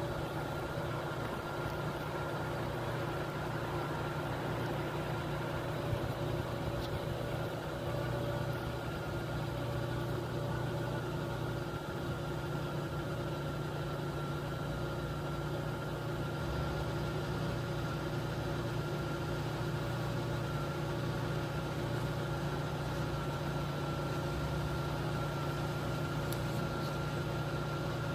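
A steady, unchanging engine-like hum with a few constant tones, as of an engine idling.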